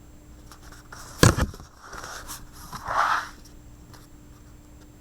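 A picture book being handled: a sharp knock about a second in, then paper scraping and rustling.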